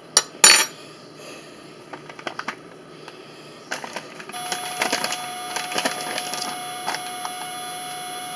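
Oven door of a white range banging shut: two sharp metallic clanks, then a few light clicks. About four seconds in, a steady hum with a thin whine sets in and carries on under further clicks.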